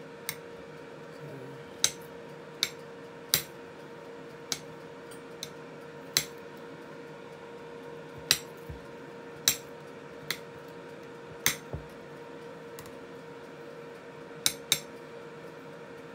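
Kitchen utensils clinking and knocking on a counter in sharp, separate clicks at uneven gaps, roughly one a second, over a steady hum.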